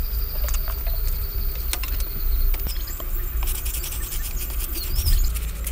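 Insects chirring, with steady high whines and rapid pulsing that thickens about halfway through. A short rising-and-falling bird call comes near the end, over a low steady rumble.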